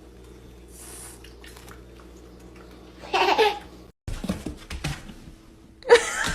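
Low steady hum, then a short loud voice-like call about three seconds in. After an abrupt cut there are scattered clicks and knocks, and near the end a person bursts out laughing.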